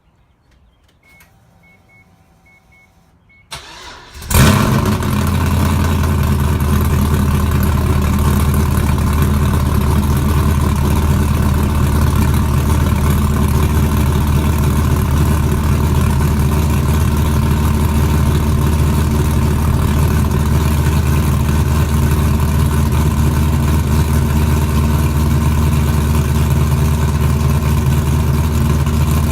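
LS1 5.7-litre V8, swapped into a Mazda RX-7, cold-started after three days sitting: the starter cranks briefly about three and a half seconds in, the engine catches with a loud bark, then idles steadily through an exhaust without its rear mufflers, on no tune.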